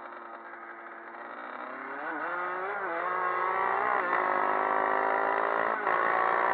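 Kawasaki dirt bike engine revving up: from about two seconds in its pitch and loudness climb, wavering briefly a few times, then it runs steadily at higher revs.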